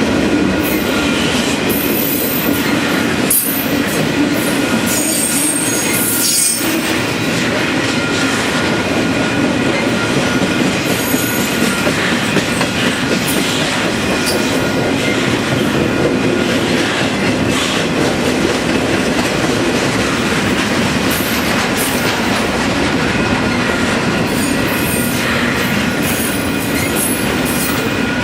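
Intermodal freight train cars rolling past at track side: a steady rumble of wheels on rail with clicks over the joints and high-pitched wheel squeals that come and go.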